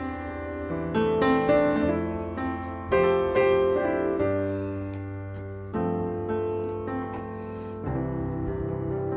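Background music: a piano playing slow chords, new notes struck every second or so over held bass notes.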